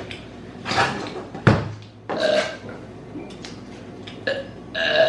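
A person burping several times on purpose, the burps brought up by drinking juice; the sharpest and loudest comes about a second and a half in.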